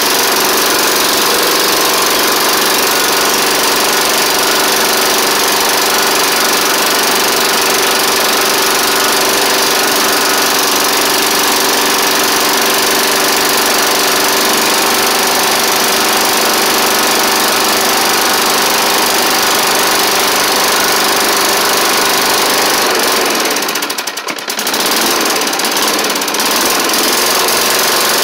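Tecumseh four-stroke engine of a Snapper Hi Vac push mower running steadily, not sounding its best, on its first run after a carburettor swap and a cleaning of its oil-caked cylinder head. Near the end it briefly sags, then picks back up.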